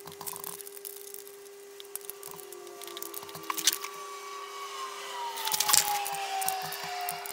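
Small metal clicks and clinks of hand tools and parts on the electronic ignition rotor's centre nut. The loudest clinks come about five and a half seconds in, as an adjustable spanner goes onto the nut. A steady tone runs underneath, with a slowly falling tone over the last couple of seconds.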